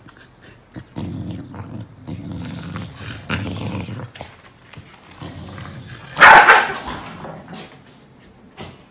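Corgis squabbling: low growling for about three seconds, then one loud bark about six seconds in.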